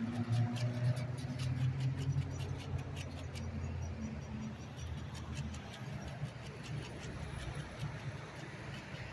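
Quick rhythmic scraping strokes of horseradish root on a hand grater, about four or five a second, thinning out after about three seconds. A low hum underneath fades away about halfway through.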